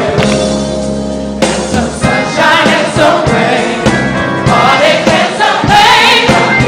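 Gospel choir singing with instrumental accompaniment. A held chord comes first, and the voices come in about two seconds in.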